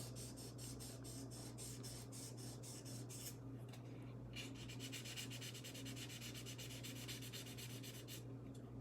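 Fine 1000-grit wet sandpaper rubbed back and forth over a stainless steel watch clasp in quick, even strokes of about five a second, with a pause of about a second midway. This is sanding out scratches down to the deepest one.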